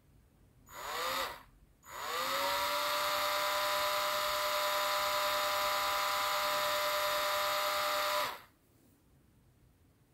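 Dremel rotary tool, spinning a small model part held in its chuck. It is switched on briefly and cut off, then started again. Its whine rises as it spins up, holds steady for about six seconds, then stops.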